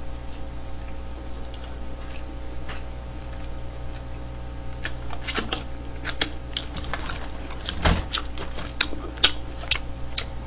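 Close-miked eating sounds of smoked chicken being eaten by hand: irregular sharp smacks and clicks of chewing and finger-licking, sparse at first and coming thick and fast from about halfway through, over a steady low hum.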